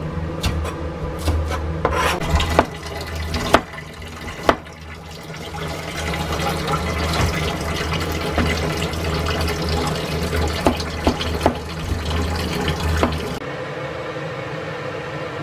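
A cleaver knocking on a plastic cutting board a handful of times while cutting scallions, then a long stretch of steady rubbing and scraping with a few more knocks, which stops abruptly near the end.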